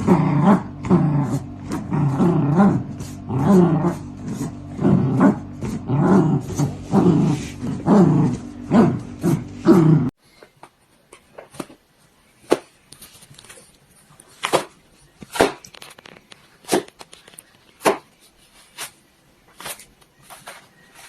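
A dog growling in quick repeated bursts, about two a second, for about half the time. It stops abruptly, and a much quieter stretch of scattered sharp clicks and taps follows.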